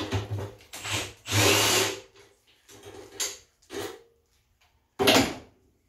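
Milwaukee cordless drill/driver run in about five short bursts, the longest about a second and a half in, working fasteners on an ATV's bodywork.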